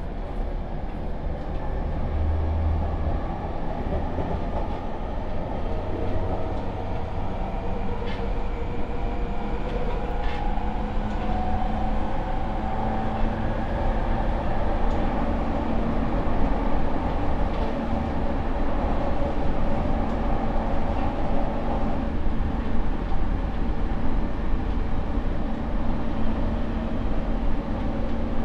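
JR East E231 series 800-subseries electric train heard from inside a motor car: the Mitsubishi IGBT VVVF inverter and traction motors whining over steady wheel-on-rail rolling noise as the train runs. The motor tones rise a little around the middle, and there are a few faint clicks.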